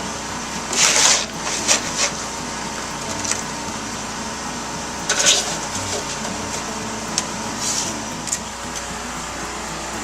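A few short scraping strokes from a tool working wet concrete: one about a second in, one around five seconds in and a fainter one near eight seconds, over a steady background hum.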